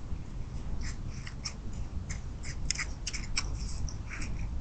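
Deer crunching cracked corn and sweet feed at a feeder, with irregular crisp crunches about two a second over a low background rumble.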